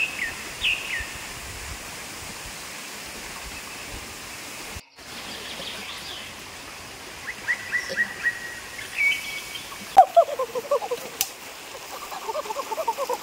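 Birds calling in a forest: a few falling whistled notes at the start, a run of quick chirps that step up in pitch past the middle, and from about ten seconds a busy series of short lower calls, over a steady background hiss. The sound drops out briefly just before five seconds.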